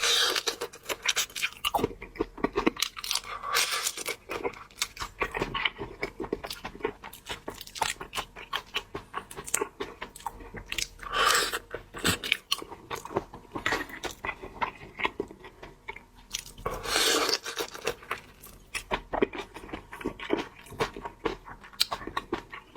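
Close-up chewing and crunching of shrimp, many small wet crunches one after another, with two longer, louder crunches about eleven and seventeen seconds in.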